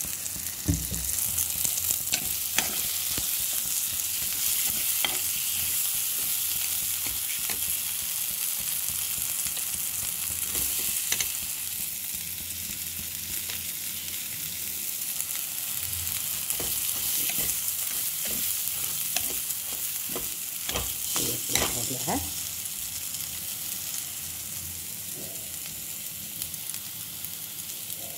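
Masala and green peas sizzling in oil in a kadhai, a steady frying hiss, with a metal spatula scraping and clinking against the pan now and then, most busily about three-quarters of the way through.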